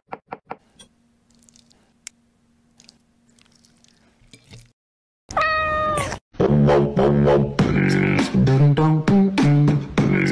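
A few quick knife taps on a wooden cutting board, then a single long cat meow about five seconds in, dropping in pitch at its end, followed by music.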